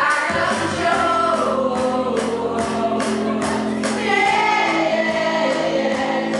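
Dance music with a singing voice and a steady beat, played loud over a DJ's sound system.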